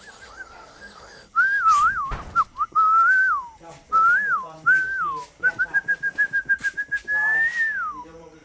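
A dog being called with a whistle: a series of short whistled phrases that rise and fall, starting a little over a second in, then a fluttering whistle held for about a second and a half that swells up and falls away near the end.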